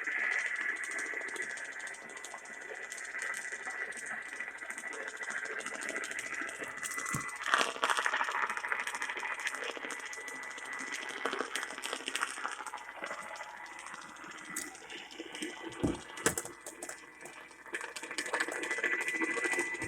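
Broadcast radio receiver giving out hiss and static, with irregular crackles and clicks and a faint steady high whistle underneath: weak reception with no programme audio.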